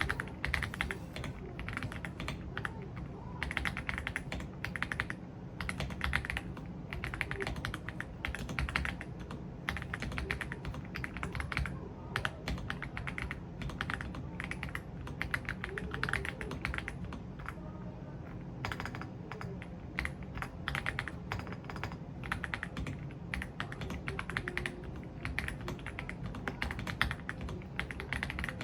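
Typing on an AULA F75 mechanical keyboard fitted with Reaper switches: a dense stream of key presses in quick runs, with brief pauses.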